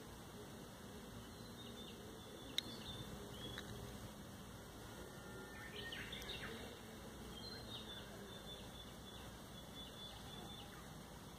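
Faint outdoor ambience of a pine forest: low steady background noise with a few scattered faint bird chirps, and a single sharp click about two and a half seconds in.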